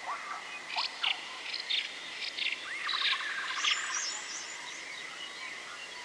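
Forest ambience of several birds chirping and calling in short, quick notes, with a fast rattling trill a few seconds in, over a thin steady high tone.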